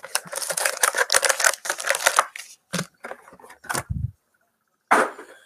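Packaging of a box of football trading cards being torn open: dense crinkling and tearing for about two seconds, then scattered clicks and a dull thump about four seconds in as the box and cards are handled.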